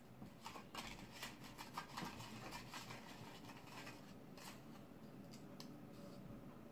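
Faint rustling and light clicks of folded paper slips being stirred by hand in a ceramic bowl, busiest in the first few seconds, then a slip being unfolded.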